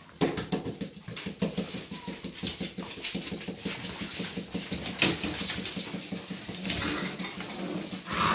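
A litter of Rhodesian Ridgeback puppies scrabbling and jostling on a hard wooden floor: a dense, rapid pattering of many paws and claws, with a few short puppy whimpers.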